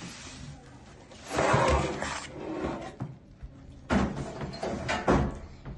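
A baked pizza being slid off a metal baking tray onto a stone countertop: a scraping slide about a second and a half in, then two sharp knocks near the end.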